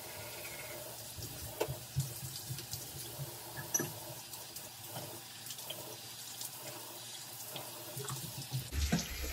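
Bathroom sink tap running steadily while teeth are brushed and rinsed at the sink, with a few short sharp splashes and clicks.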